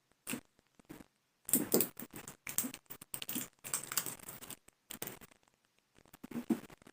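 Plastic alcohol bottle being handled and its sealed cap worked open: irregular sharp plastic clicks, crackles and scrapes, busiest between about one and a half and five seconds in.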